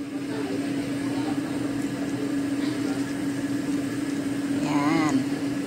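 Steady machine hum on one constant low tone.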